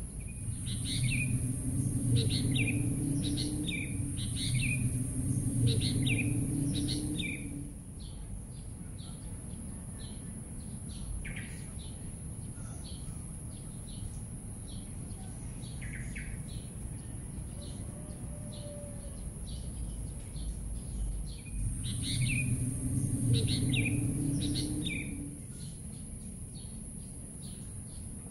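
Small songbirds chirping in repeated short calls, many sliding downward, over a steady high hiss. A low rumble swells under the busiest chirping twice, near the start and again past the middle.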